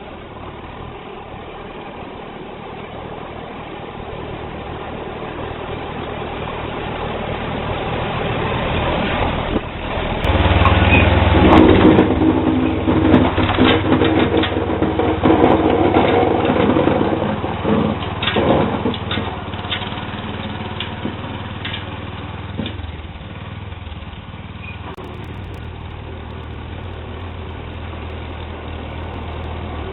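Sears Suburban SS12 garden tractor's small engine running while plowing snow. It grows louder over the first ten seconds and is loudest about a third to two thirds of the way in, with a run of short clanks and rattles, then settles to a lower, steady running sound.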